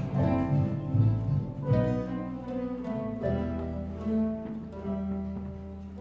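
Mandolin ensemble of mandolins, mandolas and double basses playing a carol: plucked melody and chords, with long held bass notes coming in about halfway through.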